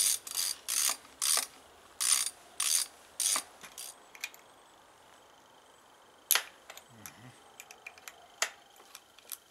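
Socket ratchet wrench clicking in short spurts, about one every half second, as it loosens the valve cover bolts of an outboard engine. After about three and a half seconds the ratcheting stops, leaving scattered light clicks and a sharp tap about six seconds in as the loosened bolts are handled.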